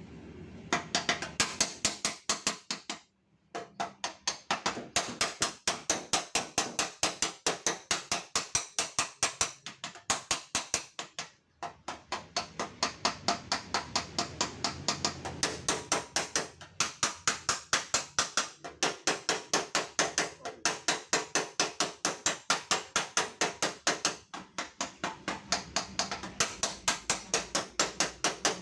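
Rapid, steady hammer taps on a car's dented steel fender, about four or five blows a second, as the panel is beaten back into shape. The tapping stops briefly twice, about three seconds in and again near the middle.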